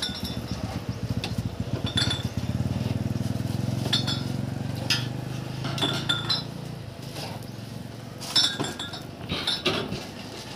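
Metal tongs clinking and scraping on a steel flat-top griddle, a dozen or so sharp clinks scattered through. Underneath, a low engine drone swells in the first half and fades.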